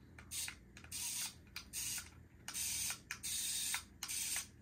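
Tiny electric drive motors of a Top Race TR-011 mini RC excavator whirring in about six short bursts, each under a second, as the controller buttons are pressed one after another.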